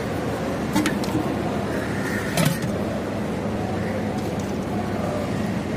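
Steady railway-platform background noise with faint distant voices, and two sharp clicks of a steel ladle against the pot and foil bowls as food is served.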